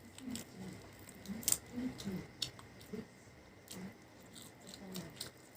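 Close-up chewing and mouth sounds of someone eating, with irregular wet clicks and smacks; the sharpest is about a second and a half in.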